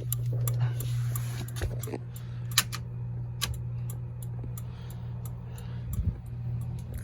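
EP27 LED flasher relay in a 1995 Jeep Cherokee XJ clicking steadily, about three soft clicks a second, as the turn signals or hazard flashers blink. A steady low hum runs underneath.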